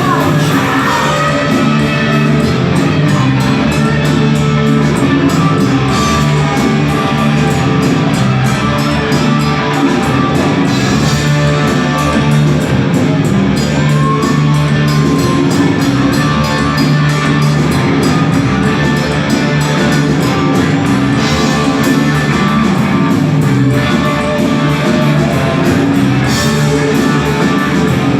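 Live rock band playing loud, with electric guitars and drums.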